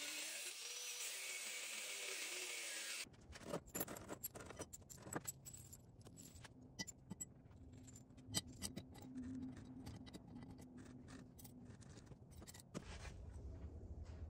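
An angle grinder with a cut-off wheel runs, cutting through a steel knife blade, for about the first three seconds and then cuts off suddenly. After that come many separate light metallic clinks and clatters as the chopped steel pieces are handled and packed into a small square steel canister.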